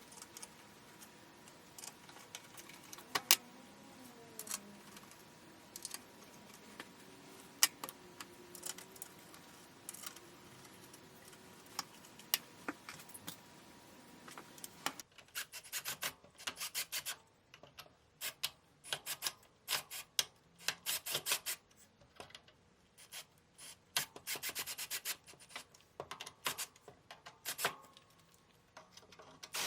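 Screws being turned into a recliner's wooden base: scattered clicks in the first half, then from about halfway on, runs of short rasping scrapes as the screws go in.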